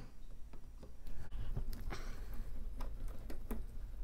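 Slotted screwdriver working a small steel screw out of a Unimat SL-1000 motor bracket: scattered light metallic clicks and scrapes.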